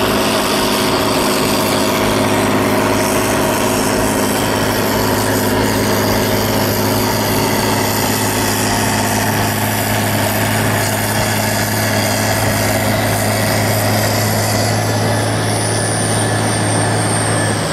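Volvo L70E wheel loader with a front-mounted Øveraasen snowblower working at steady high speed, its engine drone and the blower's rush of thrown snow blended into one even roar. A faint high whine sliding slightly down in pitch comes in near the end.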